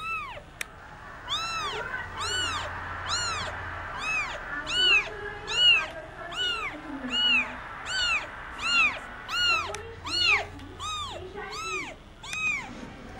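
Young kitten crying with a long run of short, high-pitched meows, a little more than one a second, each rising and falling in pitch. A single sharp click under a second in.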